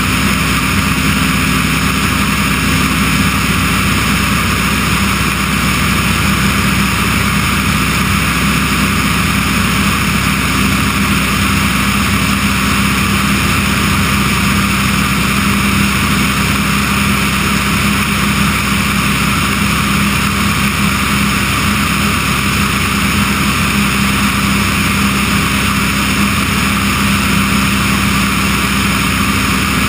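Remos G3/600 light sport aircraft in cruise: its Rotax 912 flat-four engine and propeller droning steadily, mixed with rushing airflow, heard from outside the cabin on the wing strut.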